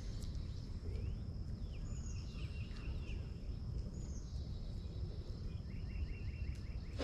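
Outdoor creekside ambience: birds chirping and whistling at intervals, with a quick run of about six repeated notes near the end, over a steady high-pitched buzz and a low rumble.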